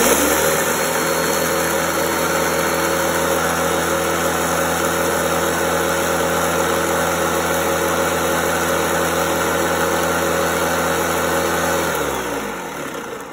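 Ninja countertop blender motor running at full speed, grinding rolled oats into powder. It starts abruptly and runs steadily, then is switched off about twelve seconds in and spins down with falling pitch.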